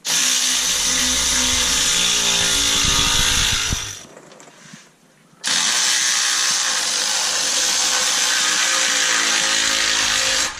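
Milwaukee cordless ratchet motor running in two long pulls, one of about four seconds and one of about five, with a short pause between, driving down the nut of an exhaust band clamp.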